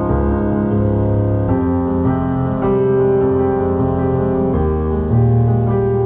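Background music: slow, sustained keyboard chords, changing about a second and a half in and again past the four-and-a-half-second mark.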